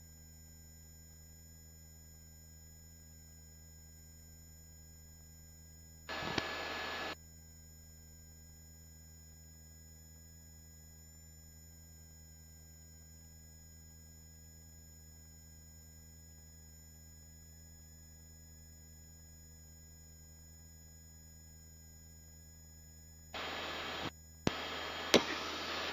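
Helicopter cabin intercom feed: a faint steady hum made of several level tones, broken by short bursts of hiss-like cabin noise as a headset microphone opens, once about six seconds in and twice near the end.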